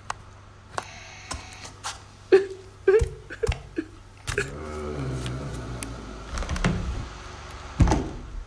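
Footsteps and knocks, about two a second for the first few seconds with a few short squeaks among them, then a low rumbling stretch and one louder thump near the end.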